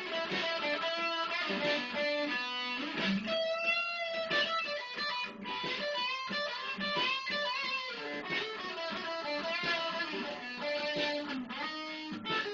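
Electric guitar playing a rock jam: a continuous run of single-note melodic lines, some notes held and some bent in pitch.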